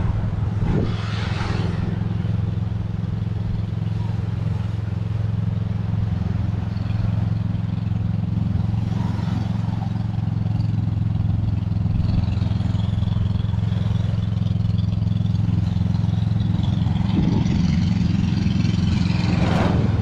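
Engine of a boat coming in to shore, running at a steady low drone that grows slightly louder as it approaches.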